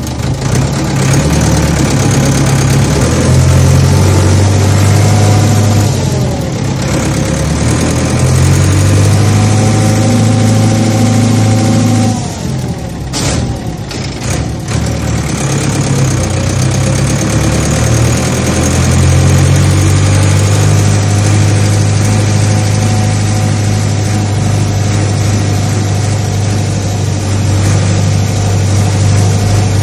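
Large farm-machine diesel engine running loudly. About 12 seconds in, the engine note falls and briefly falters, then settles into a steady run.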